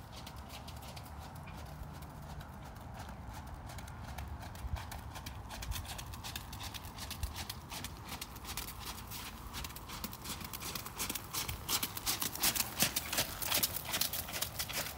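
Horse's hooves trotting on wet gravel arena footing, a steady run of crunching hoofbeats that grows louder as the horse comes closer, loudest near the end.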